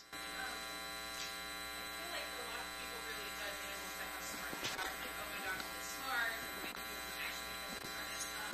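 Steady electrical mains hum with many overtones in the recording, louder than anything else. Underneath it, an audience member's voice asks a question, distant and faint because it is not on the microphone.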